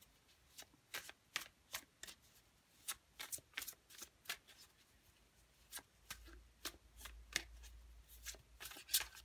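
Tarot cards of a Gilded Tarot deck being shuffled by hand: an irregular run of sharp, light card snaps, a few each second.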